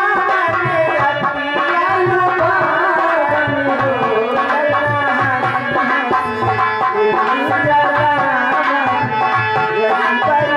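Live nautanki stage music: a hand drum keeping a steady rhythm under a wavering melody.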